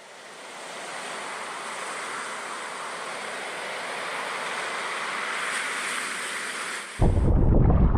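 A steady rush of ocean surf fading in. About seven seconds in, it cuts abruptly to loud, gusting wind buffeting the microphone.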